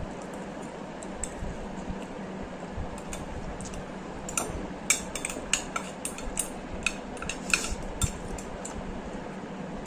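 Eating utensils clicking and clinking against a bowl, a quick run of sharp clicks through the middle few seconds, over a steady low background noise.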